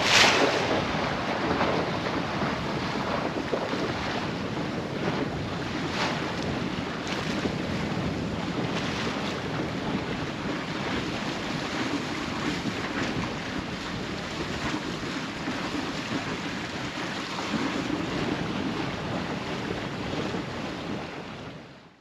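Water rushing along the hull of a sailboat under way under sail, with wind buffeting the microphone; the sound fades out near the end.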